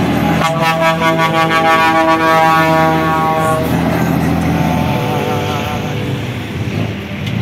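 Heavy truck with a tipper semi-trailer passing close, sounding a long steady air-horn blast for about three seconds that sags slightly in pitch as it goes by, over the rumble of its engine and tyres. Music starts to come in near the end.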